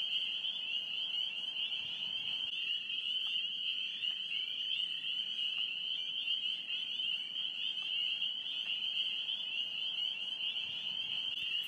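Dense chorus of frogs, a steady high-pitched trilling that runs without a break.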